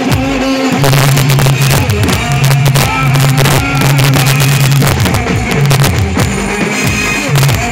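Loud dance music with a heavy bass line of long held notes and a busy drum beat.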